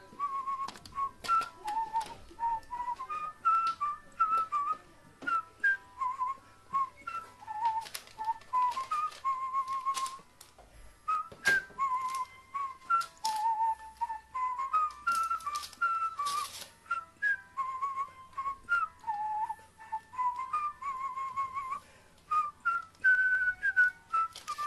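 A whistled background-music tune, a steady stepping melody of clear notes, over sharp clicks and paper rustling from a carrion crow pecking and tugging at a paper flyer with its beak.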